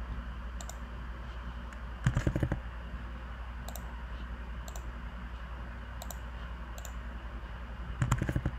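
Computer mouse clicks: scattered single clicks, with two louder runs of quick clicks about two seconds in and near the end, over a steady low hum.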